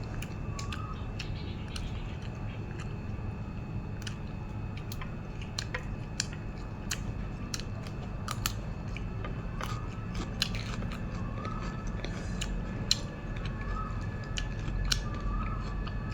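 A person eating nam tok moo, Thai grilled pork salad: chewing with many irregular sharp mouth clicks and smacks over a steady low hum.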